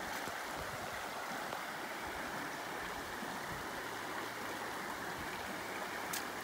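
Shallow river rapids rushing steadily over rocks, with a brief tick near the end.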